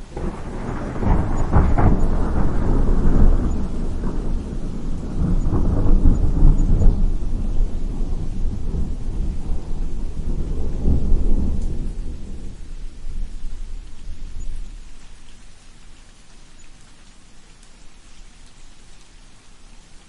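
A thunderclap over steady rain: it breaks in suddenly, rumbles on with several swells and dies away after about fifteen seconds, leaving the steady hiss of the rain.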